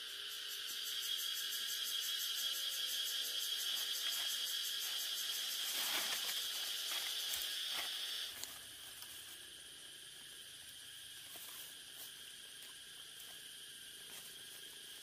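Insects shrilling in a steady high-pitched chorus that drops away abruptly about eight seconds in, leaving a fainter insect drone.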